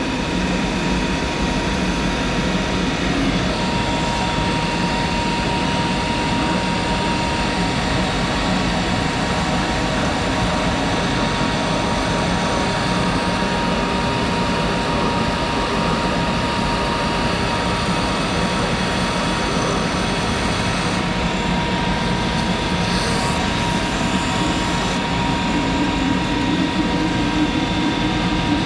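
Monarch 10ee lathe running steadily under its original motor-generator DC variable-speed drive, a loud even machine noise. A steady high whine comes in a few seconds in, and a lower hum rises again near the end.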